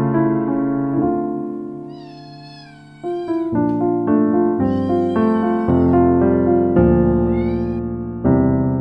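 A kitten meowing three times, high-pitched: a long wavering meow, a second one a couple of seconds later, and a short rising one near the end. Piano-led instrumental music plays under it and is the louder sound.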